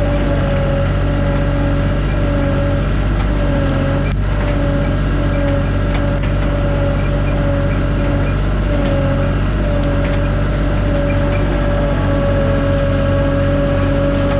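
Tractor engine running steadily under load, with a steady whine above the engine note.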